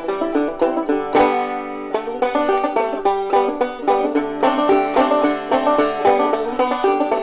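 Epiphone 250 banjo being played in a fast run of picked notes, with one struck chord about a second in that rings on before the picking resumes. The neck has just been adjusted so the fretboard sits flush with the head, and the banjo is sounding good again.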